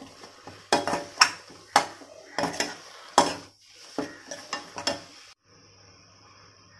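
A slotted metal spoon scraping and clanking against a metal kadai while stirring a sauté of wet, wilted gongura leaves with onion and tomato: a quick series of sharp clanks and scrapes. About five seconds in the stirring stops abruptly, leaving only a faint steady hiss.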